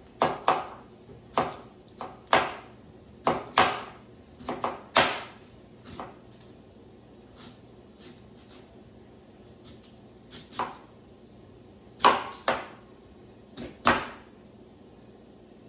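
Knife chopping sweet potatoes on a cutting board: sharp, irregular chops in small clusters, with a pause of a few seconds in the middle.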